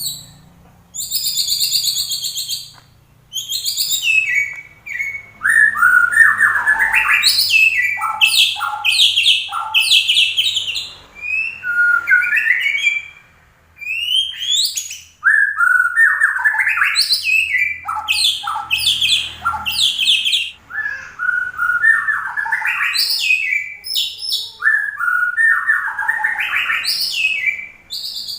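White-rumped shama singing a loud, varied song of whistled sweeps and rapid trills, delivered in bursts with short pauses between them, full of the imitated phrases that keepers call its isian.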